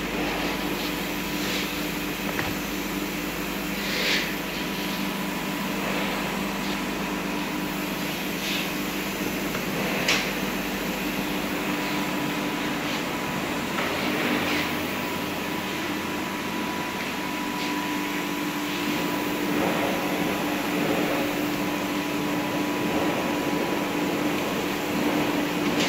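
Steady hum of packaging machinery running in the workshop, with a few short rustles and clicks from parts and plastic film being handled.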